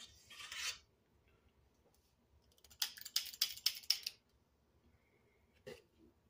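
Metal spring-loaded cookie scoop squeezed, its sweeper clicking in a quick run of sharp clicks about three seconds in as it releases pancake batter onto the griddle pan, with a single click near the end.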